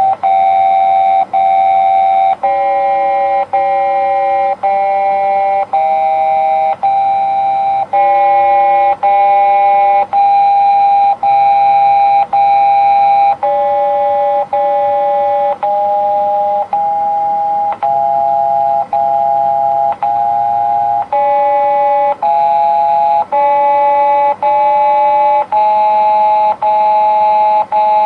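A slow melody of clean electronic chime tones, several sounding together. Each note lasts about a second with a brief break before the next, and many notes are sounded twice before the pitch steps on.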